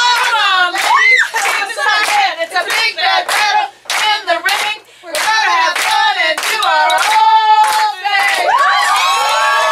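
A group of women singing a song with rhythmic hand-clapping keeping the beat, a few claps a second. Near the end the voices come together on long held notes.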